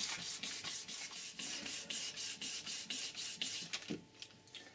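600-grit wet-and-dry abrasive paper rubbed back and forth by hand on the metal head-gasket face of a Wolf air compressor's cylinder head, in short strokes about two or three a second that stop near the end. It is taking the last of the burnt old head gasket off the mating face.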